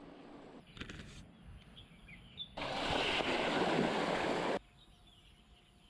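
Quiet outdoor ambience with a few faint bird chirps, broken about halfway through by two seconds of a loud, steady rushing noise that starts and stops abruptly.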